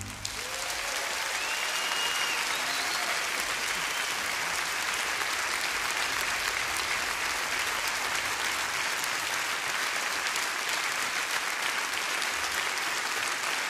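Audience applauding steadily, the clapping swelling over the first couple of seconds as the music ends.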